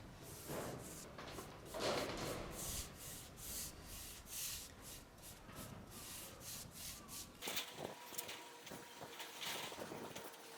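Repeated rubbing strokes, about two a second, that stop about seven seconds in; after that a faint steady tone is heard.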